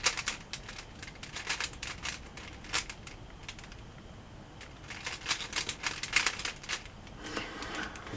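Plastic Rubik's cube being turned by hand: quick runs of clicking, rattling face turns, with a pause of about two seconds in the middle.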